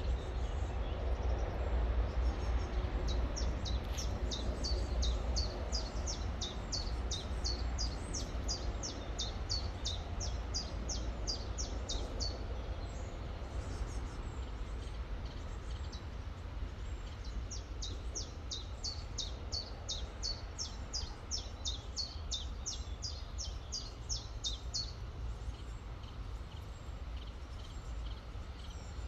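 A songbird repeats a short, high, downward-sweeping note about three times a second in two long runs, with a pause between them. Under it is the steady rush of a flowing river with a low rumble.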